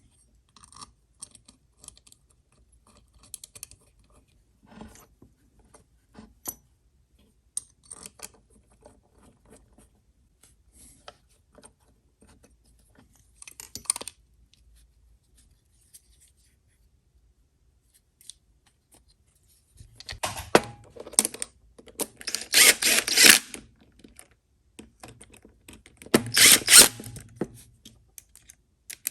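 Small clicks, taps and knocks of hand tools and metal parts being handled, then two louder rasping bursts of a second or more near the end.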